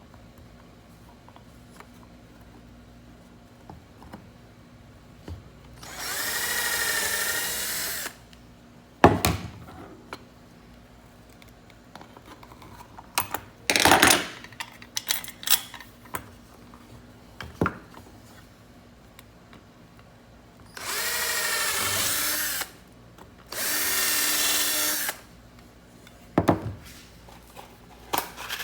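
Electric drill running in three short runs of about two seconds each, drilling into the plastic armrest handle support, with sharp knocks and clicks of handling in between.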